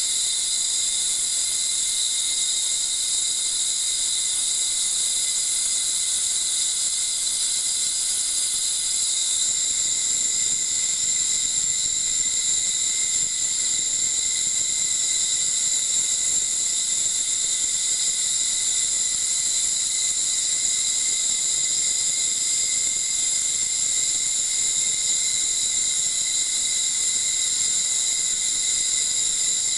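Power ultrasound emitter running in liquid to dissolve paraffin wax: a steady high-pitched hiss carrying several fixed whining tones, with the upper tones shifting slightly about nine seconds in.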